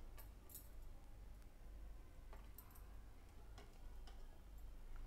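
Faint, irregular clicks of a steel spoon knocking against the side of a ceramic bowl while a drink is stirred.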